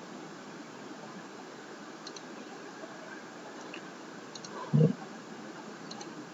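Faint computer mouse clicks, several in quick pairs, over a steady hiss of microphone noise, with one short low thump just under five seconds in.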